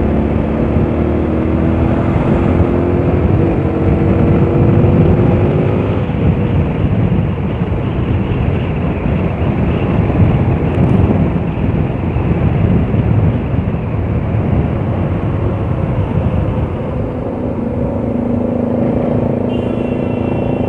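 Bajaj Pulsar RS200's 200 cc single-cylinder engine running at road speed through an open exhaust, with the muffler and dB killer removed. The sound is a loud, steady rumble heard from the rider's seat.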